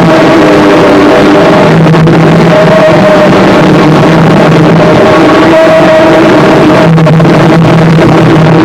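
Harsh noise music: a dense, unbroken wall of distorted noise at full loudness, with low droning tones fading in and out underneath.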